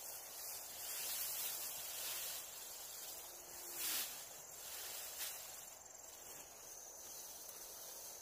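Insects chirping as a thin, steady high buzz over a hiss of outdoor background, with a brief louder noise about four seconds in.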